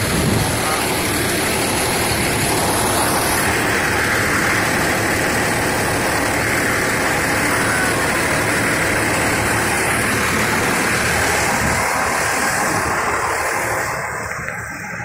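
Fire engine's diesel engine running steadily, heard up close alongside the truck; the sound drops away near the end.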